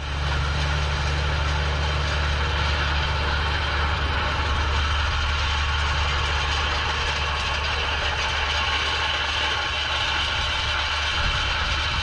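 Ford TW-20 tractor's six-cylinder turbo diesel engine running steadily under load as it pulls a set of Cambridge rolls across the seedbed.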